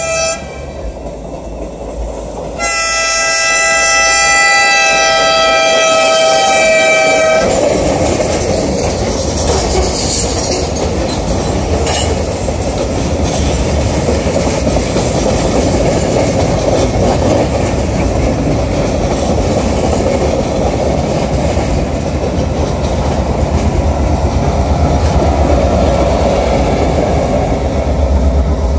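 A train horn gives a short toot, then sounds one long blast of about five seconds a few seconds in. After it, a maintenance-of-way train of gondola cars rolls past, its wheels rumbling and clacking steadily on the rails.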